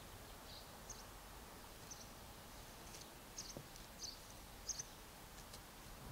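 Faint bird chirps: short, high calls scattered about once a second over a quiet background hiss.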